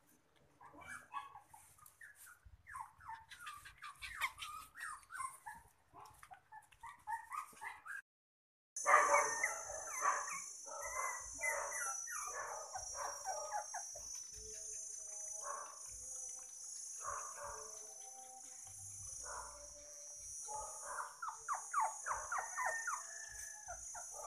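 Toy poodle puppies eating from a bowl, with fast wet chewing and lapping, and a few soft whimpers in the middle. After a short break about 8 seconds in, a steady high hiss runs underneath.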